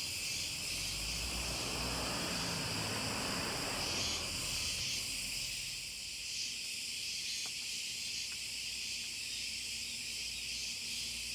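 Steady, dense chorus of insects chirring high-pitched and unbroken, with a low noise underneath for roughly the first four seconds.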